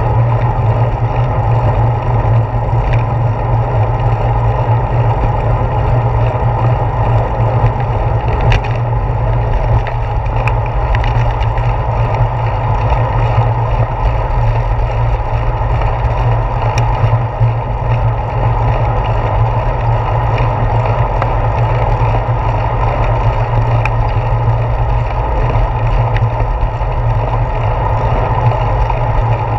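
Wind rushing over a handlebar-mounted GoPro Hero 4 on a moving bicycle, with tyre and road rumble carried up through the handlebars: a loud, steady, low rumble that never lets up.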